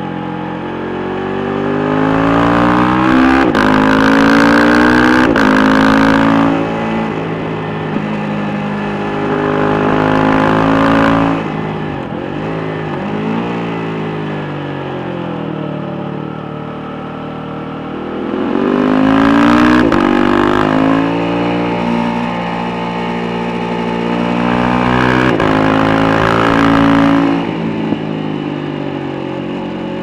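KTM 690 Duke R's single-cylinder engine, breathing through an Akrapovic slip-on with the cat removed, accelerating hard through the gears with quick-shifted upshifts: the pitch climbs and drops a step at each shift. It closes off and engine-brakes with falling revs about a third of the way in, then pulls hard again twice more.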